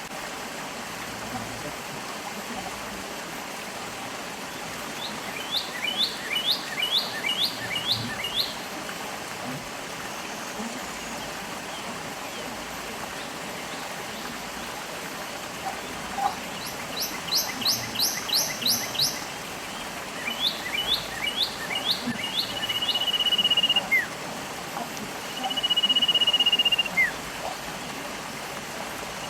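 Stream water running steadily, with songbirds singing over it: three quick runs of rapid chirping notes, then long held whistled notes near the end.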